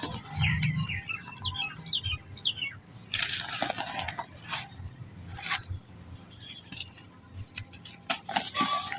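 Balls of soft black sand being crushed and crumbling, giving irregular dry crackly crunches, the loudest a few seconds in. A string of quick bird chirps sounds in the background during the first couple of seconds.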